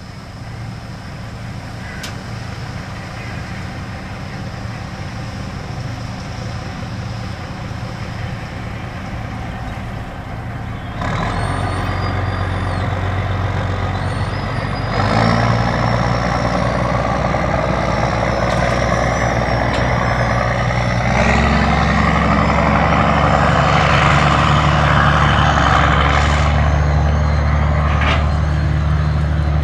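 Big diesel harvest machinery running in a field, steady engine drone with hydraulic and mechanical whine, growing louder in abrupt steps about eleven, fifteen and twenty-one seconds in.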